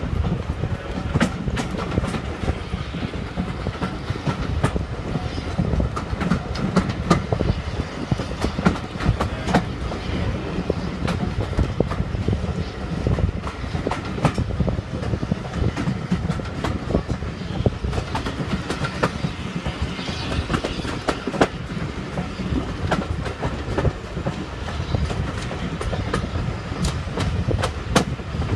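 Passenger carriage of a steam railway running along the track, with a steady low rumble and frequent sharp clicks from the wheels on the rails, heard from an open carriage window.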